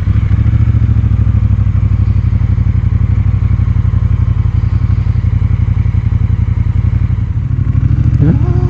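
Honda Rebel 1100's 1084 cc parallel-twin engine running steadily just after starting, with even firing pulses, back in life once the main harness that had come loose from the battery was reconnected.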